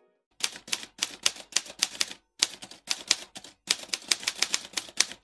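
Typewriter keystroke sound effect: sharp key strikes at about three or four a second, in three runs broken by two short pauses, stopping abruptly at the end.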